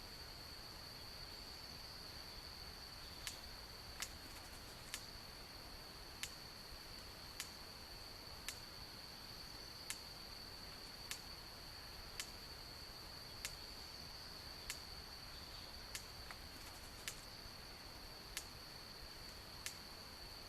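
Faint, steady, high-pitched insect drone, cricket-like, with sharp clicks repeating about once every second from a few seconds in.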